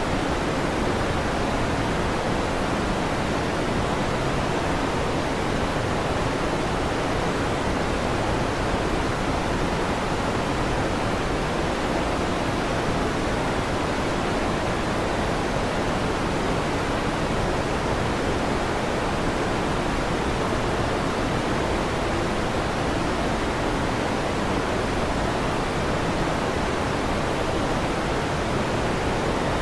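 Electric fan running: a steady, even rushing noise with no rises, drops or claps of thunder.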